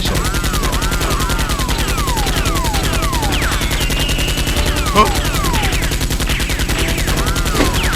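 Gunfire sound effect of rapid automatic fire, a steady unbroken stream of shots, with whistle-like tones falling in pitch over it and one sharper, louder bang about five seconds in.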